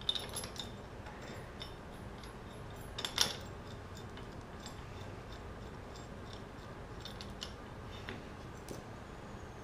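Light metal clicks and clinks of bolts and washers being handled and fitted against a steel brake bracket and spindle, a quick cluster at the start, the loudest clink about three seconds in, then a few scattered light ticks.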